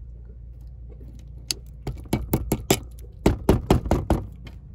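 A quick, irregular run of clicks and rattling knocks, like hard parts being handled, starting about a second and a half in and stopping shortly before the end, over a steady low hum.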